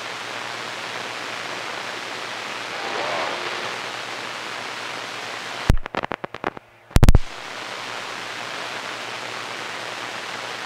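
CB radio receiver putting out a steady hiss of static and band noise, with a faint, garbled voice showing through the noise about three seconds in. About six to seven seconds in, the hiss breaks up into a run of sharp clicks and pops, then returns.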